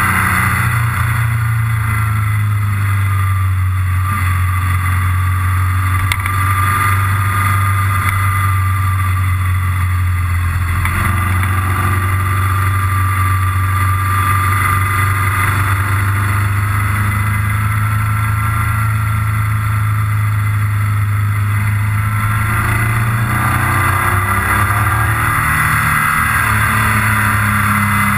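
Motorcycle engine running at a steady cruising pace, with wind and road noise on the onboard microphone; the engine note shifts about three-quarters of the way through.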